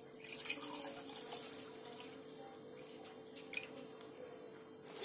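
Milk pouring from a jug into a drinking glass: a faint, steady trickle that grows fainter after the first second or two, over a faint steady hum.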